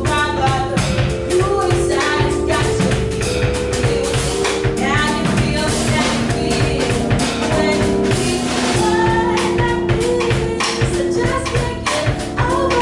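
Music with a steady drum beat, held instrumental notes and a singing voice.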